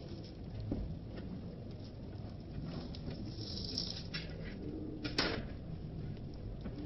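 Egg omelette frying in a metal kadai with a steady low hiss, while a slotted metal spatula scrapes and taps against the pan under it; the sharpest scrape comes about five seconds in.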